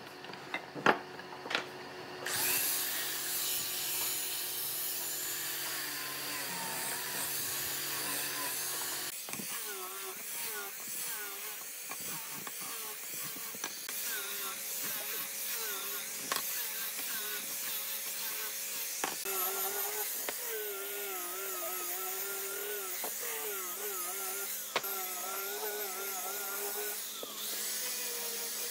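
Angle grinder fitted with a sanding disc sanding wooden chair parts, its motor whine wavering in pitch as the disc is pressed onto the wood. A few sharp knocks of wood being handled come just before the grinder starts, about two seconds in.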